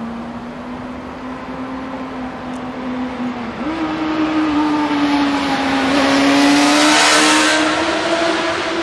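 Electric tram's traction motors humming steadily, the pitch stepping up about three and a half seconds in and rising as it accelerates away. A car passes close, loudest about seven seconds in.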